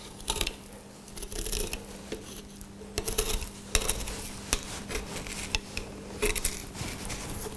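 Filleting knife drawn along a zander's rib bones, giving irregular crisp clicks and short scrapes as the blade passes over the bones.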